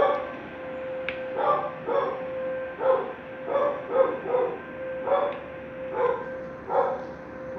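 Dog barking repeatedly, roughly one or two barks a second, over a steady tone from an outdoor tornado warning siren.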